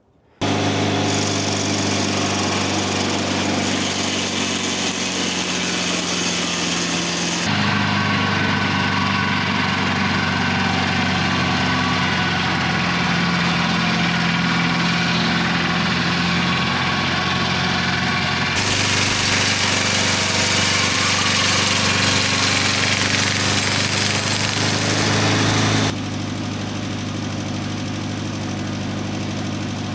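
Engine of a portable dimension sawmill running steadily while sawing boards. The sound changes abruptly three times, about 7, 18 and 26 seconds in.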